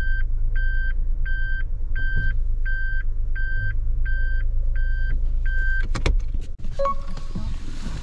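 A car's in-cabin electronic warning beeper sounding a steady series of identical beeps, about one and a half a second, over the low hum of the running engine. The beeps stop about six seconds in and a sharp click follows.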